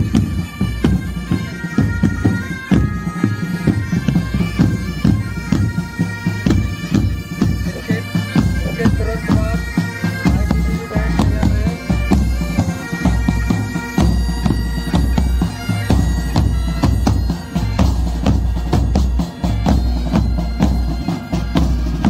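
Military pipe band playing on the march: bagpipes sound a melody over their steady drones, with drums, including a bass drum, beating time.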